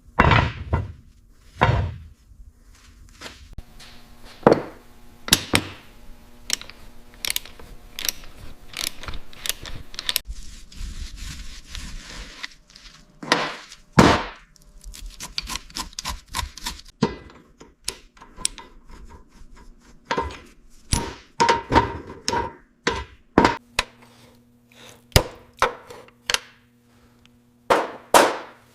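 Workshop tool work: a string of irregular knocks, taps and clanks of tools and parts being handled. A low steady hum comes in about two-thirds of the way through.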